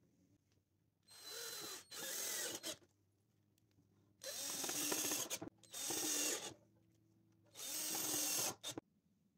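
Cordless drill-driver driving wood screws into a plywood end block, in short runs of about a second each that come in three pairs, the motor's pitch sweeping up and down as each screw bites and seats.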